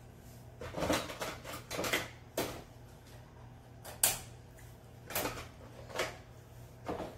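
Plastic building-toy pieces clicking and clattering as they are handled. The clicks are short and irregular: several close together in the first two seconds, then single ones about a second apart.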